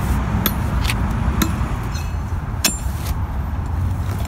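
Steel pickaxe striking and prying at saw-cut asphalt, several sharp clinking hits in the first three seconds over a steady low rumble, as the cut strip is broken loose for removal.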